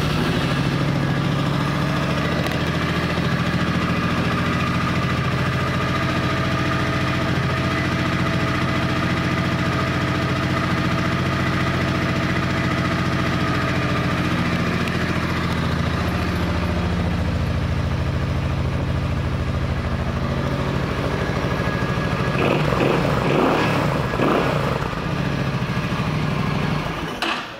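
A 2005 Suzuki C50 Boulevard's 805 cc V-twin idling steadily after a start. The sound grows louder and rougher for a couple of seconds about 22 seconds in, and cuts off suddenly near the end.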